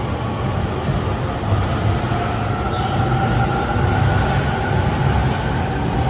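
E231-1000 series electric train pulling out and gathering speed, the whine of its traction motors rising slowly in pitch over a low rumble of the cars rolling past.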